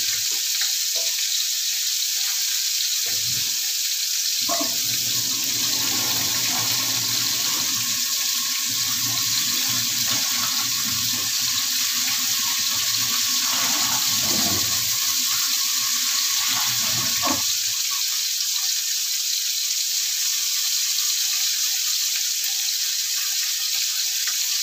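Red snapper heads frying in hot oil in a wok: a steady hiss of sizzling oil. Fainter low knocks and rumbling sit underneath between about five and seventeen seconds in.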